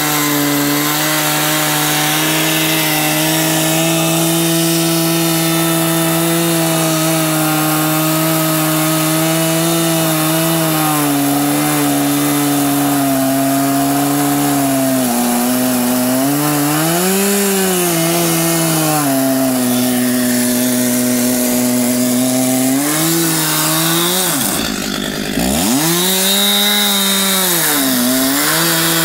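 Chainsaw on an Alaskan chainsaw mill ripping a log, its two-stroke engine held at high revs under load. The pitch sags and recovers a few times as the cut loads it, and drops sharply about 25 seconds in before climbing back to speed.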